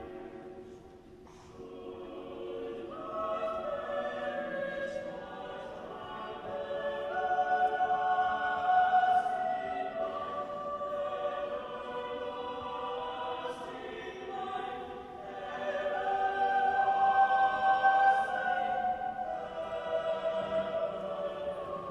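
Choir singing slow, long-held notes, swelling louder twice.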